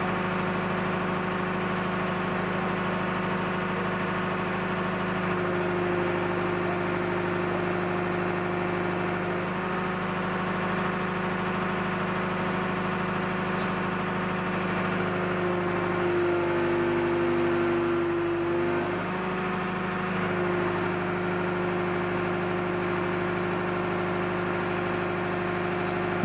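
An engine, likely the one powering the lifting crane, runs steadily at idle. Its note shifts for a few seconds past the middle, then settles back.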